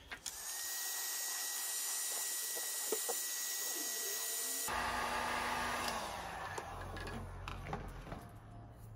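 Electric heat gun blowing hot air onto a seized pedal, a steady rushing hiss with a thin high whine from its fan. About halfway through the sound changes abruptly to a duller, lower rush that then fades away.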